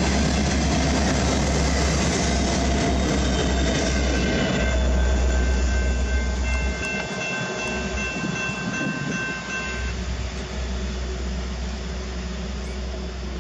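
Empty coal hopper train rolling past, its steel wheels rumbling and clattering on the rails, then easing off as the last cars go by. A steady higher-pitched tone sounds from about five to ten seconds in.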